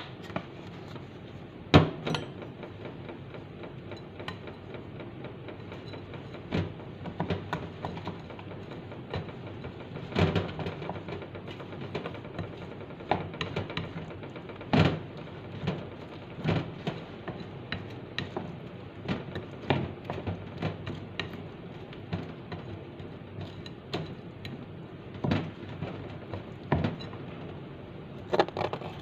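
Utensil clinking and scraping against a ceramic bowl as oat pancake batter is stirred, with irregular clicks and a few sharper knocks.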